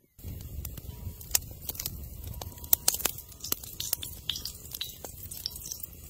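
Wood fire crackling and popping beneath a flat steel griddle, sharp irregular pops over a low rumble, starting suddenly just after the start.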